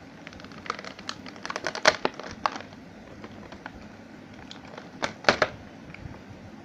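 Small sharp clicks and taps of a 1/64 scale model truck and its plastic packaging being handled, irregular, with a few louder snaps about two seconds in and again around five seconds in.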